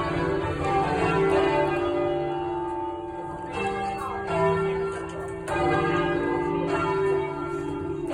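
A ring of twelve church bells in D rung full-circle for change ringing, the bells struck one after another in a continuous stream of overlapping peals.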